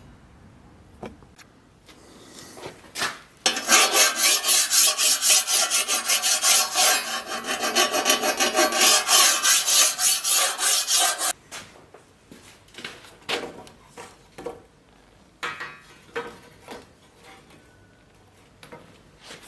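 Steel blade being worked by hand with an abrasive, in a fast run of rhythmic scraping strokes, two to three a second, that stops suddenly. A few lighter, scattered strokes follow.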